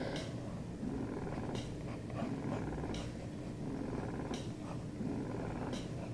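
A cat purring steadily close to the microphone, rising and falling with each breath. A few short scratches of a pen on sketchbook paper sound about every second and a half.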